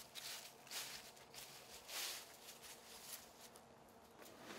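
Faint footsteps crunching through dry fallen leaves, an irregular step every half second or so, dying away near the end.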